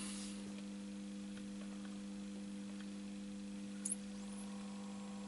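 Faint, steady mains hum as the powered-up oscilloscope setup is slowly brought up to voltage. A short high click and rising chirp come just before four seconds in. Then the newly fitted 1.2-watt 12 V DC cooling fan starts turning, adding faint higher steady tones.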